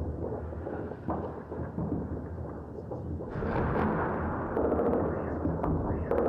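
Distant gunfire and explosions echoing over a city during an armed clash: a continuous low rumble with scattered sharp cracks of shots, growing louder about three seconds in.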